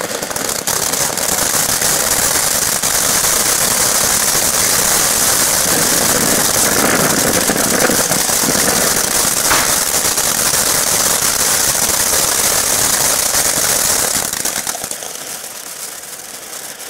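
A firework burning with a steady, loud hiss and dense crackle that dies down about fourteen seconds in.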